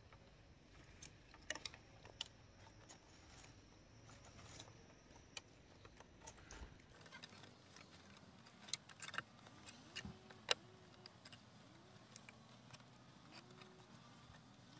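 Faint, scattered clicks, ticks and rustles of thin lashing strips being wrapped and pulled tight around the ends of wooden poles, busiest in the middle with one sharper click about ten seconds in.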